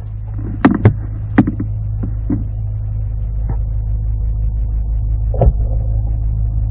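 A low, steady engine hum that grows gradually louder, with a few sharp knocks in the first second and a half and another near the end.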